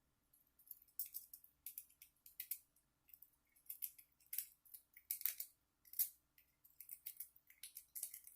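Metal wave rake scrubbed in and out of a small pin tumbler gun lock, scraping over the pins under a tension bar: an irregular run of quick, scratchy metallic clicks starting about half a second in.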